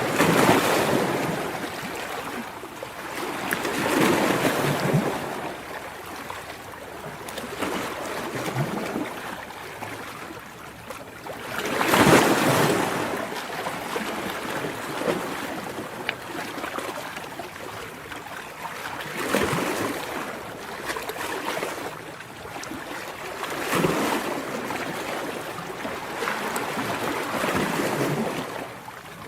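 Ocean waves breaking and washing on shore, surging every few seconds, the biggest wave about twelve seconds in.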